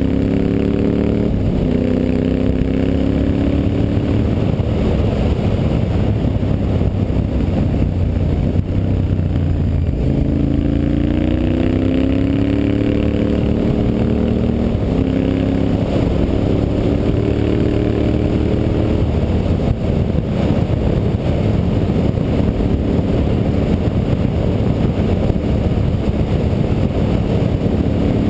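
Honda Varadero 1000's carburetted 996 cc V-twin engine running under way, its pitch rising and falling several times as the throttle opens and closes, over a steady rush of wind noise.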